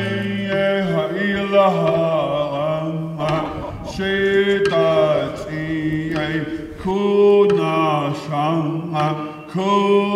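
A solo voice chanting a song in repeated melodic phrases, each starting about every three seconds.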